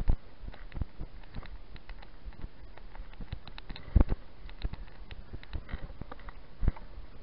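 Mountain bike being ridden over tarmac, heard through a GoPro mounted on it: a steady rumble with constant light clicking and rattling from the bike, and heavy knocks right at the start, about four seconds in and near the end.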